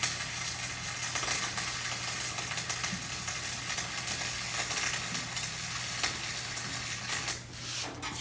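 Flux-core arc welding: the arc's steady, dense crackle and sizzle as a bead is run, stopping near the end.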